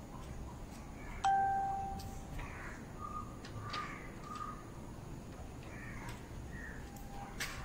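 A single bell-like ding about a second in, a clear tone with a fainter higher one fading away over about a second. It is followed by three short bird calls in quick succession.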